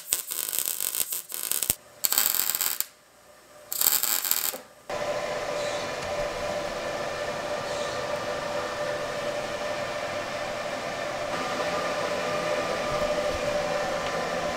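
Welding arc crackling and sputtering in several short bursts with brief pauses, as steel reinforcement plates are welded onto a car's subframe. After about five seconds the welding gives way to a steady whirring hum, like a fan.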